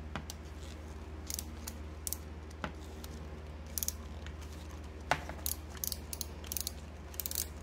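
Ratchet screwdriver clicking in scattered single clicks and short runs of quick ticks as it turns a stuck screw on an old cast-iron sewing machine part, the screw soaked in penetrating oil and starting to give. A steady low hum runs underneath.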